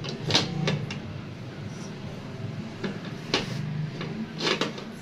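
Aluminium pressure cooker lid being twisted loose and worked open, metal knocking and scraping against the pot in a few sharp clunks: one just after the start, a pair around three seconds in, and another near the end.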